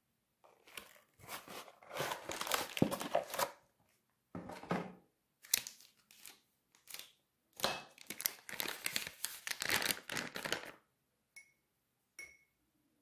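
Crinkling and tearing of a corn starch box's foil-lined inner packet as it is opened, in several bursts. Near the end come two light clinks.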